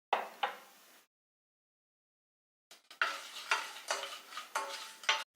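A spoon stirring jaggery syrup boiling in a pan, cooking it down to one-string consistency. Two sharp clicks at the start, then after a silent gap about two seconds of repeated scraping and clinking strokes against the pan.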